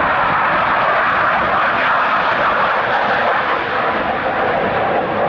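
Boeing F-15QA Eagle's twin jet engines at high power as the fighter climbs out after a touch-and-go: a loud, steady jet noise.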